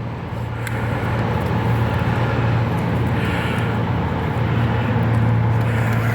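Steady low rumble of vehicle noise, swelling over the first couple of seconds and then holding.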